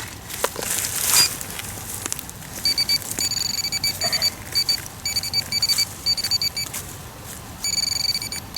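Metal detector sounding on a buried target: a high, pitched beep repeating two to three times a second as the coil passes over the spot, then held as a longer tone near the end. Before the beeps, rustling and a few knocks.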